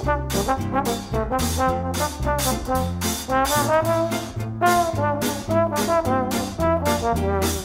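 Upbeat music with a brass melody over a bass line and a steady drumbeat.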